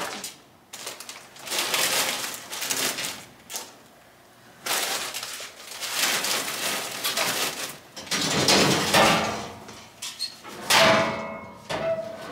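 Metal pull-down door of a post office parcel drop chute being opened and shut as plastic-wrapped mailers are pushed in, with rustling plastic packaging and clattering in irregular bursts. A couple of short squeaks near the end.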